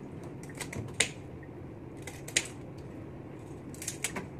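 Kitchen scissors snipping through the hard shell of raw mantis shrimp: a few sharp, crisp clicks in small clusters, with pauses of a second or more between them.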